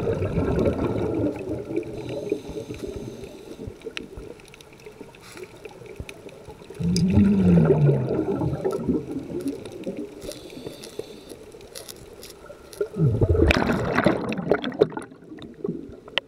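Underwater scuba breathing: exhaled air burbling out of the divers' regulators as bubbles, in three bursts about six seconds apart, the middle one with a low tone that rises and falls.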